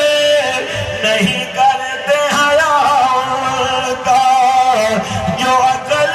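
A man's voice chanting devotional verse (a naat in praise of the Prophet) into a microphone, in a drawn-out melodic style with long wavering held notes and short breaks for breath.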